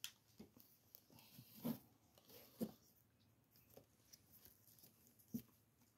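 Near silence with a few faint clicks and taps of a plastic action figure and its hammer accessory being handled and posed.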